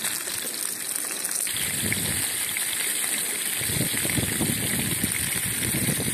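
Steady sizzling hiss of fresh grayling fillets frying in a pan. About a second and a half in the sound shifts abruptly, and from about three and a half seconds a low, gusting rumble joins the hiss.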